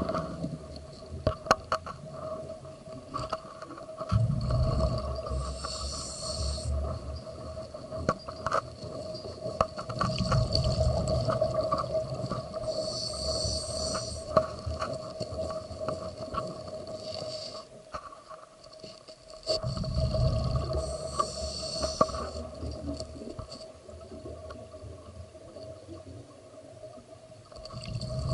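Scuba regulator breathing underwater: slow cycles of a hiss on the inhale and a rumble of exhaled bubbles, about every eight seconds, over a steady high hum, with scattered clicks and knocks.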